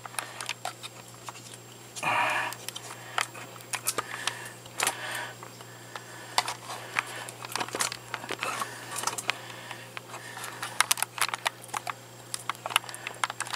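Handling noise and scattered light clicks and knocks from work in the cabinet under a kitchen sink, with a brief rustling burst about two seconds in, over a steady low hum.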